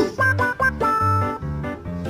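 Background music: a bouncy tune of held notes over a bass line that repeats a few times a second.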